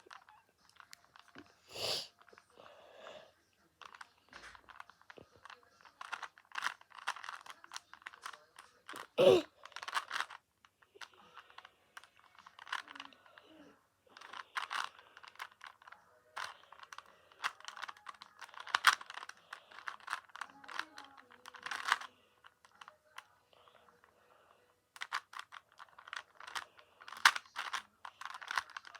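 3x3 Rubik's cube being turned by hand: bursts of rapid plastic clicking and clacking as the layers are twisted, with short pauses between sequences of moves.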